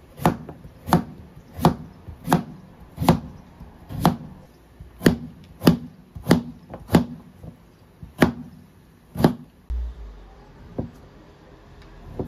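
Chef's knife slicing raw potatoes on a cutting board: about a dozen sharp, even knocks of the blade hitting the board, roughly one every two-thirds of a second. After about nine seconds the cutting turns softer and sparser, with the knife going through a block of ham.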